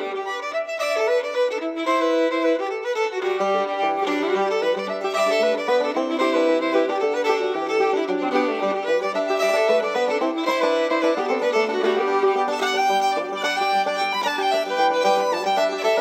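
Background music: an instrumental tune led by a fiddle.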